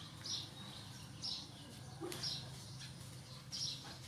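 A small bird chirping: short high chirps about once a second, over a faint steady low hum.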